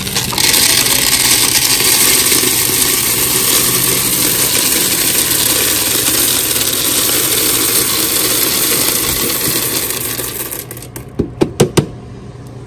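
Small hard-shelled candies poured in a steady stream from a plastic tub into a bulk vending machine's candy compartment, a dense rattle that tails off about ten seconds in. A few sharp knocks follow near the end.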